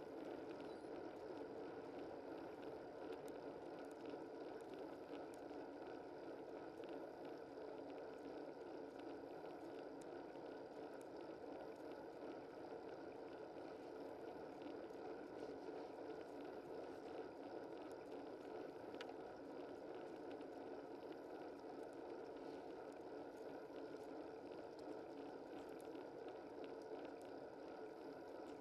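Steady rushing noise of a bicycle being ridden, wind and tyre noise picked up by a bike-mounted camera, with scattered faint ticks.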